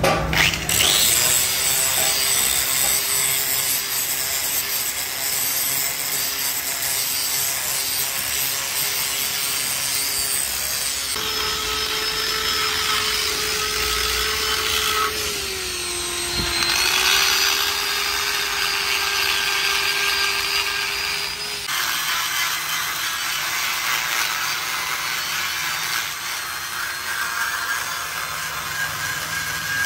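Electric hand grinders grinding a cast-iron engine block: a steady motor whine with the abrasive scraping the metal, the pitch sagging briefly under load near the middle. The sound changes abruptly twice, and near the end a corded die grinder is working a bit around the cylinder bore.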